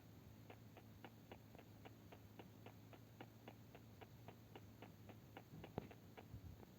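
Faint, regular ticking at about four ticks a second, with one louder click near the end.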